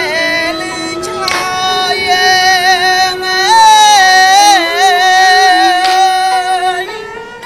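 Bassac opera (Lakhon Basak) singing: a voice holding long, wavering notes over accompanying music, fading down near the end.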